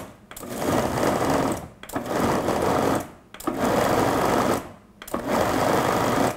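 Breville Sous Chef food processor pulsed in four runs of about a second and a half each, the motor and blade starting and stopping with short breaks between, as it churns cubed cream cheese, sugar and Oreo crumbs into a smooth filling.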